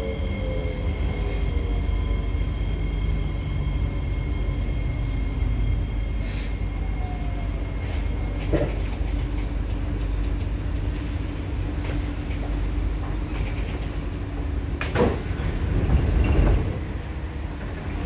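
Inside a Kawasaki–CRRC C151A metro train braking into a station: low running rumble with steady electrical tones and a falling whine at the start as it slows. A sharp sound about fifteen seconds in is followed by the passenger doors opening near the end.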